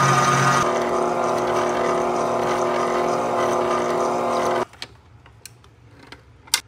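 SMEG stand mixer motor running steadily as its whisk beats marshmallow fluff, shifting in pitch under a second in, then switched off abruptly about four and a half seconds in. A few light clicks follow, with a sharp click near the end as the mixer head is tilted up.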